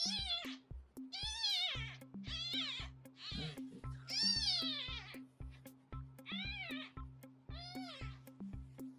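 Newborn kitten mewing, about eight high, arching cries in a row, each around half a second long, over background music with a steady beat.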